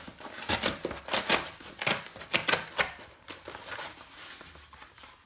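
Cardboard mailer being torn open by hand: the perforated tear strip ripped off with a fast run of crackles and rips, then the stiff flap lifted, with the crackling thinning out near the end.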